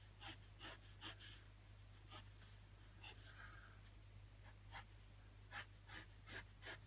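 A hard 3H graphite pencil scratching on drawing paper in short, quick strokes as hair lines are sketched, about ten strokes in all.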